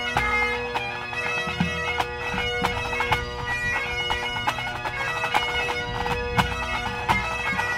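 Full pipe band playing: Great Highland bagpipes sounding a steady drone under the chanter melody, with snare drums and a bass drum beating along.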